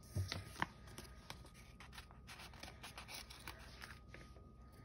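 Faint paper handling: light clicks, taps and rustles of fingers moving a sticker sheet and pressing stickers onto planner pages, a few sharper clicks near the start.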